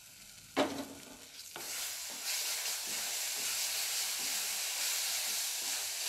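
Besan-and-spice masala sizzling in a non-stick kadhai as yogurt is stirred into it with a wooden spatula; the hissing sizzle sets in about a second and a half in and holds steady. A short knock about half a second in.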